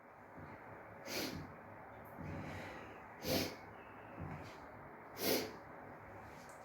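A woman sniffing and breathing through her nose during a sneezing fit: three short sniffs about two seconds apart, with softer breaths between them.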